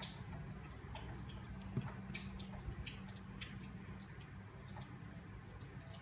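Faint, irregular small clicks and rustles of a crochet hook working yarn, making single crochet stitches, over a steady low hum.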